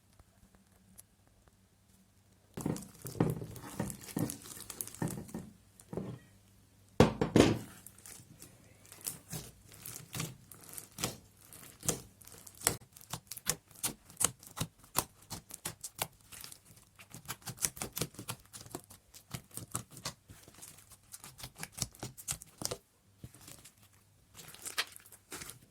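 Crunchy slime being squished and worked by hand, giving rapid crackling and popping clicks. It starts after a couple of seconds of quiet, with one loud thump about seven seconds in and a short pause near the end.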